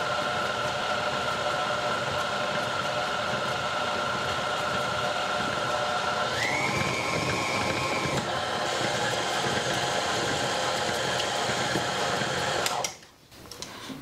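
KitchenAid tilt-head stand mixer running, its motor whining steadily as the flat beater turns thick graham cracker cookie dough. The whine jumps higher for about two seconds near the middle, and the mixer shuts off about a second before the end.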